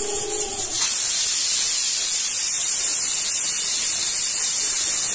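Aluminium pressure cooker's whistle weight lifting and venting steam: a loud, steady high hiss that starts about a second in. This is the sign that the cooker has reached full pressure.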